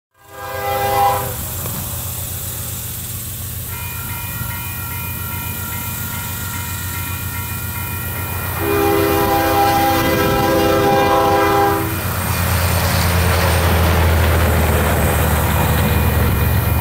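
Locomotive air horn of an approaching diesel freight train blowing its grade-crossing signal: a short blast, then a long chord from about four seconds in that grows louder before stopping near twelve seconds, then the next blast starts right at the end. Under the horn, the low rumble of the train's GE diesel locomotives grows louder as it draws near.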